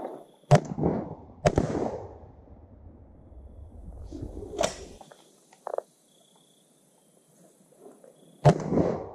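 Shotgun shots at wood ducks flying over: four blasts, two in quick succession near the start, a weaker one around the middle and another near the end, each followed by a rolling echo.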